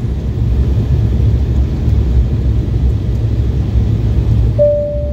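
Steady low rumble of an Embraer 170 airliner's cabin noise in flight on descent, engines and airflow heard from a passenger seat. Near the end, a clear single tone of a cabin chime begins.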